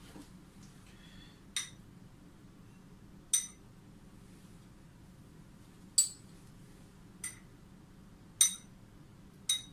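Six light clinks of a small spoon against glassware, each ringing briefly, spaced a second or two apart.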